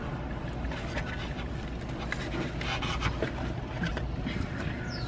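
Steady low hum of a car cabin with the engine running, with soft chewing and breathing noises close by, thickest about halfway through.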